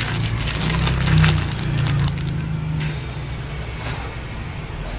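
Shredded mozzarella sprinkled by hand onto a baking tray: a scatter of light crackling ticks, densest in the first three seconds, over a steady low hum that drops away about three seconds in.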